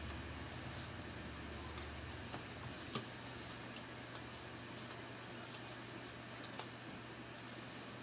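Faint handling noise of cardboard 3D terrain pieces being fitted together, with scattered light clicks and one sharper click about three seconds in.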